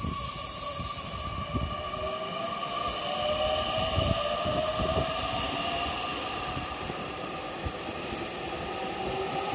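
JR Kyushu 813 series electric train accelerating away from a station platform. Its traction motors give a whine that rises slowly in pitch as it picks up speed, with a few low knocks from the wheels on the track.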